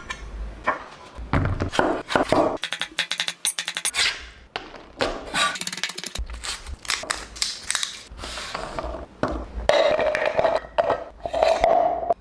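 Kitchen clatter: a run of knocks, scrapes and clicks from utensils and cookware, with a quick burst of rapid taps a few seconds in.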